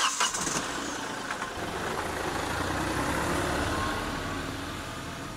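Hyundai Grand i10 hatchback driving past on a tarmac road: engine and tyre noise swells to a peak about three seconds in, then fades as the car pulls away. A brief loud burst of noise right at the start.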